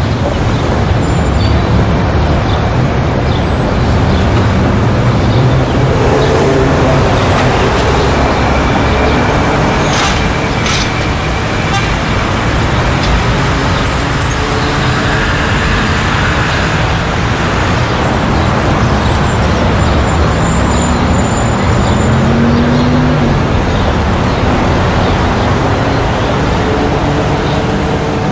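Street ambience: a steady wash of traffic noise from passing motor vehicles.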